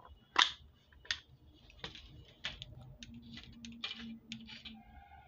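Hard plastic multimeter case and test probe being handled: a string of sharp clicks and taps, the loudest about half a second and a second in. A faint steady tone comes in over the last two seconds.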